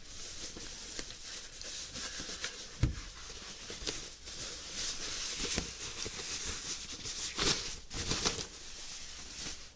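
Thin plastic wrapping rustling and crinkling as it is pulled off an oscilloscope by hand, with a soft thump just under three seconds in.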